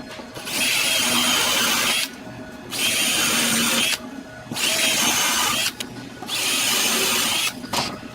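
Electric drill run in four short bursts of about a second and a half each, its motor whining at a steady pitch in each run.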